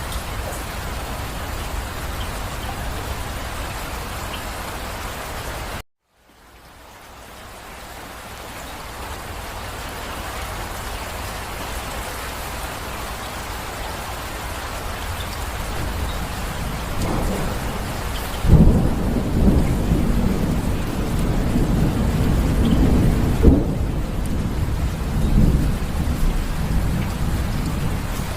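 Steady rain falling, which cuts out abruptly about six seconds in and slowly fades back up. From about 17 seconds, thunder rumbles low under the rain, with a sudden loud crack at about 18 seconds and another peak near 23 seconds.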